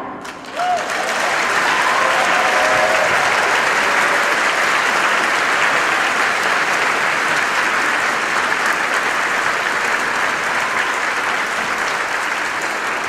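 Concert-hall audience applauding, the clapping starting about half a second in and holding steady, easing slightly near the end.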